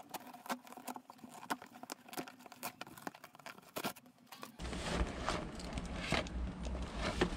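A cardboard shipping box being opened and handled: irregular clicks, taps and rustles of cardboard and packaging. About four and a half seconds in, a steady low rumble joins under the handling noise.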